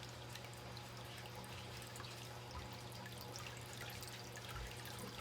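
Groundwater trickling and dripping into a sump pump pit from a perforated drain pipe, faint, over a steady low hum.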